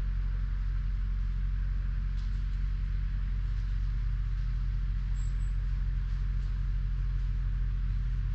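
A steady low rumble with a light hiss above it, unchanging throughout.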